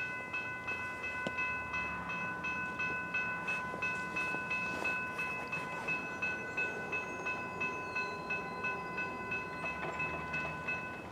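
Railroad grade-crossing bell ringing at an even pace, about three strokes a second, until it cuts off near the end.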